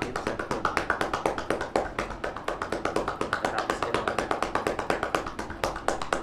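Hand percussion on a seated patient's back during chest physiotherapy: a fast, even run of tapping claps, several a second, done to loosen phlegm in the lungs.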